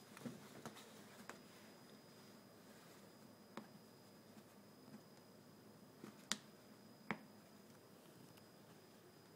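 A Bengal cat playing on a cat tree: sparse sharp clicks and taps from its claws and paws, about seven in a quiet room, the loudest about two-thirds of the way through.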